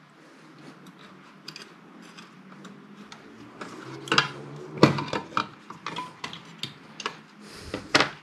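Light clicks and knocks of a circuit board and its metal parts being handled and fitted down into an aluminium power-supply case, with a few louder knocks about four to five seconds in and just before the end.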